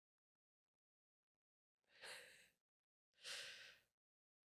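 Near silence, broken about two and three seconds in by two short, soft breaths or sighs from a person, each under a second long.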